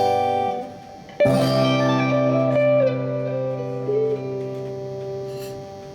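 Live guitar music: a chord strummed about a second in and left to ring, fading slowly, with a few notes sliding in pitch as it dies away, as the closing chord of the song.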